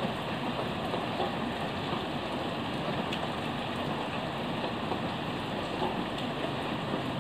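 Heavy rain falling steadily: a dense, even hiss of rain with a few sharper drop ticks here and there.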